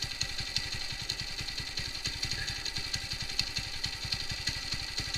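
Single-cylinder engine of a TVS Apache RTR 200 idling unevenly, without a steady rhythm, while the carburettor's fuel screw is turned out. The mixture has been set too lean, so the idle is erratic and the revs do not hold steady.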